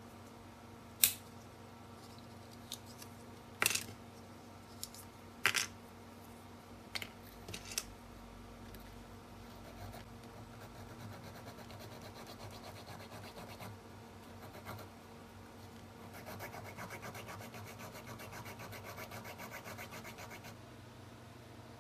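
Small metal hobby file rasping on a white plastic piece in quick back-and-forth strokes, strongest in the last third. Earlier come a few sharp clicks of small plastic parts being handled and set down.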